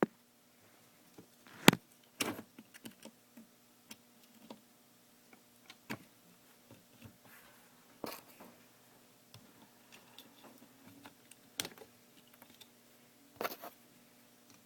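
Small plastic and metal parts of a scale model excavator clicking and tapping as it is handled and its stick is swapped: scattered light clicks with a few sharper knocks.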